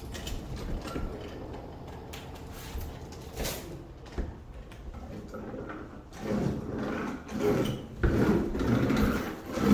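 Hand roller pushed back and forth over a fiberglass roofing sheet, pressing it down onto contact adhesive. The rubbing is faint at first and turns into louder, uneven strokes from about six seconds in.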